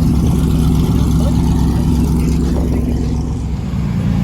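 Truck engine running steadily and loud, with a low, even engine note that shifts slightly near the end.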